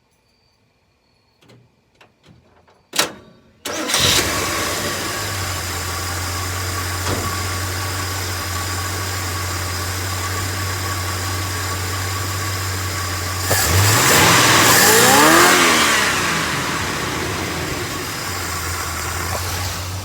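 A truck's engine, running on a newly installed carburetor and still warm, starts on the key about four seconds in after a sharp click and catches at once. It settles into a steady idle, is revved up once past the middle, and drops back to idle.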